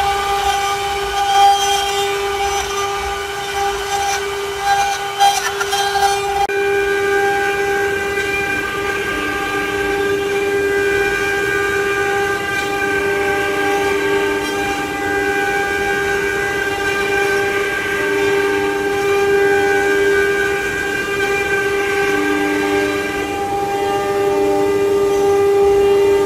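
CNC wood-carving router's spindle running with a steady high whine while cutting. A second, lower tone comes and goes in the second half, and a few sharp clicks sound in the first few seconds.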